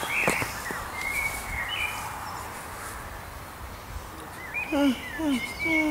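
Quiet outdoor background noise with a few faint bird chirps. A person's voice comes in near the end.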